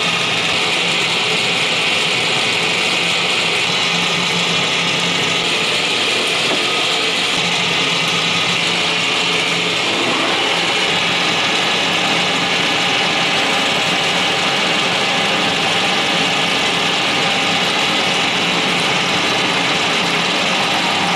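Warner & Swasey No. 2 turret lathe running steadily just after start-up: the drive motor and headstock gearing give a steady mechanical hum. About ten seconds in there is a slight brief change as the clutch lever is thrown to set the spindle turning.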